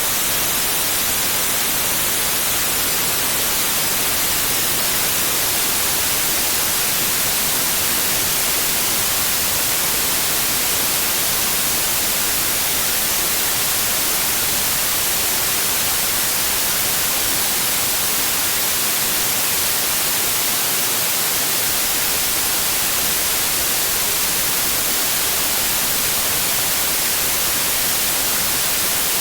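Steady, unchanging synthetic noise, a bright even hiss with no tones or breaks, played as a pink-noise sleep and relaxation track.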